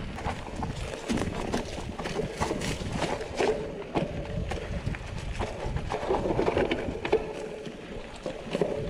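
Mountain bike rolling over a rough, rocky trail: irregular clicks, knocks and rattles from the tyres, chain and frame, over a low rumble of wind on the microphone.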